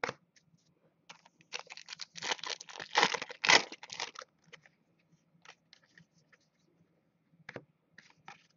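Foil trading-card pack wrapper being torn open and crinkled in the hands: a dense crackle from about a second in to about four seconds, then a few faint rustles and clicks as the cards are handled.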